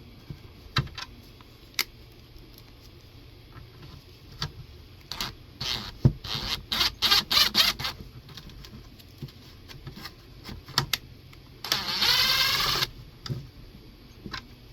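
Power drill clearing out a screw hole in a plastic mask, run in short bursts with clicks and scraping of the plastic, the longest run lasting about a second near the end.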